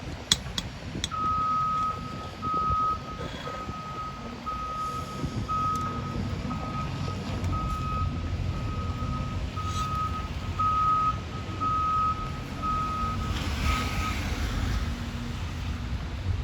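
Reversing alarm of a construction vehicle beeping about once a second, a single high steady tone, over the low rumble of a diesel engine. The beeping stops near the end. A few sharp knocks come just before it starts.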